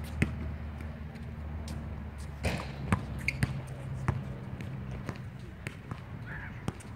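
Basketball bouncing on an outdoor hard court: a string of sharp, irregularly spaced bounces.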